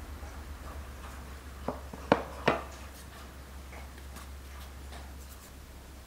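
Light scraping and small knocks of a metal tool and hands working an unfired porcelain coffee dripper, with three sharp clicks about two seconds in, over a steady low hum.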